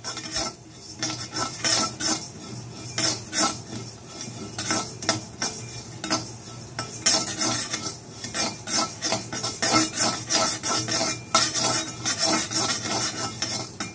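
Spatula stirring and scraping whole coriander, cumin and fennel seeds as they dry-roast in a kadai: an irregular run of quick scrapes and clicks, several a second.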